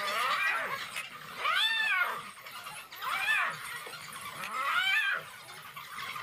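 Animals squealing during a fight between African wild dogs and a spotted hyena: three loud, drawn-out squeals, each rising then falling in pitch, about a second and a half apart, with fainter yelps between them.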